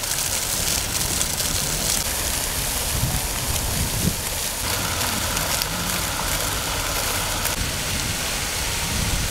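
Fountain jets splashing down into the basin: a steady rush of falling water.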